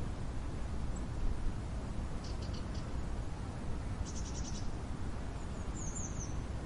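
Outdoor ambience: a steady low rumble with short high chirping trills from small wild creatures. A few quick pulse trains come about two and four seconds in, and a brief high twitter comes near the end.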